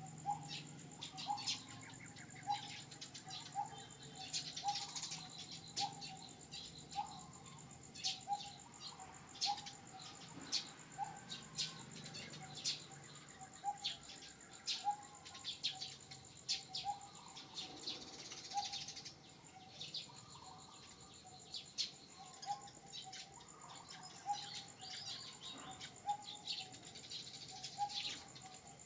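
Birds chirping over a steady, high-pitched insect drone, with a short low call note repeating about one and a half times a second.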